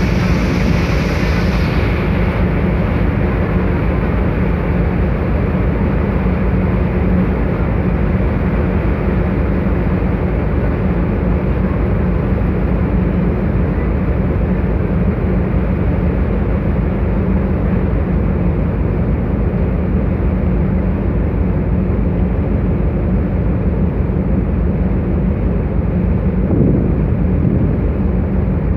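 Steady drone of a ferry's engines, with the rush of the wake churning along the hull.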